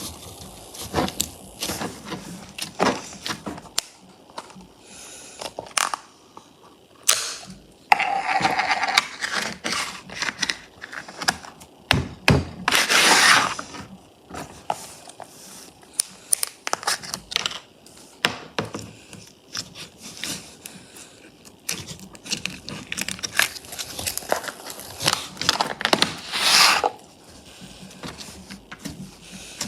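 Slime being handled: irregular wet clicks, pops and crackles as it is pressed and stretched, with a few longer squelching bursts.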